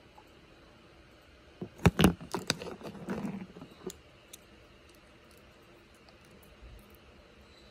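Hand-sized boulder opal stones being handled, with a quick cluster of sharp clicks and knocks about two seconds in and a short scrape after them, then quiet handling.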